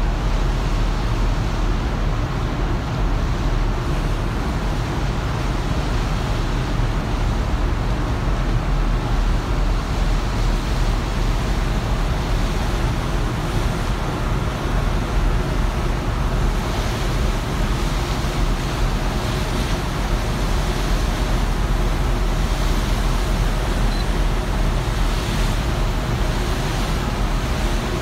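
Steady rush of churned seawater and wind between two ships running side by side at speed, over a constant low rumble, with surges of breaking water later on.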